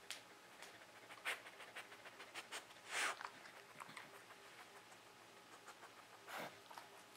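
Faint sniffing by a beagle with her nose down on a rug, with a few short, sharp sniffs standing out, the loudest about three seconds in. Small clicks and taps come from her paws and mouth as she moves about.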